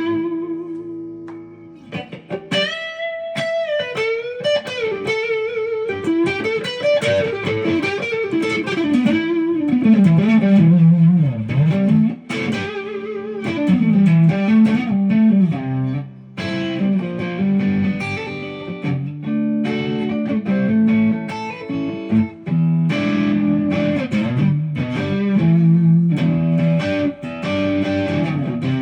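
1974 Japanese-made Ibanez Rocket Roll electric guitar played through a crunch (light overdrive) tone. A ringing chord dies away, then a single-note lead line with string bends and vibrato, then choppy chord riffs from about twelve seconds in.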